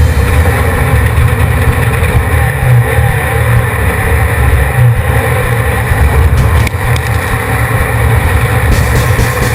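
Off-road race vehicle running at speed, its engine loud and steady.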